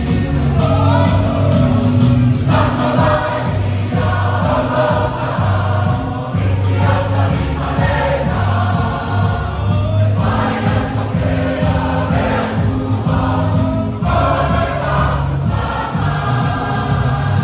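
A church choir singing a hymn in phrases a couple of seconds long, over a steady low accompaniment.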